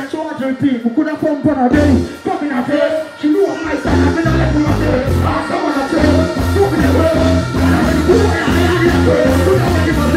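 Live dancehall music through a loud festival sound system, the artist deejaying into a microphone over the riddim. A heavy bass beat drops in about four seconds in and keeps a steady pulse.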